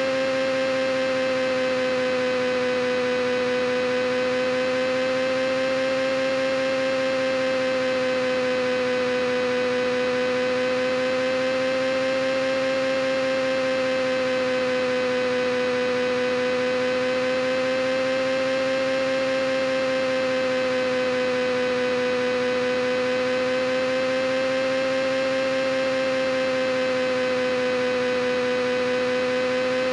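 A steady electrical-sounding hum, its pitch gently wavering up and down every few seconds.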